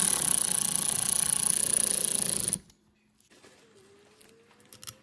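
Handheld power tool running steadily while snugging down the bolts on a VANOS unit, then cutting off suddenly about two and a half seconds in.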